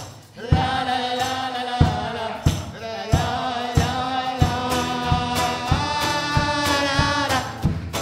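A group singing a wordless 'la la la' melody, with the audience joining the lead singer, over the band's instruments and a steady beat struck about every two-thirds of a second.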